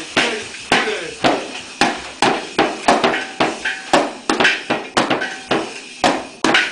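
A child's drum set being hit in a loose, uneven beat, two or three strikes a second, each hit ringing briefly.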